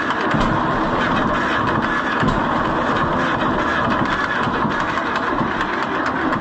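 Electric starter cranking the John Deere B's two-cylinder engine on a cold day, steadily and without it catching; the owner finds the engine flooded.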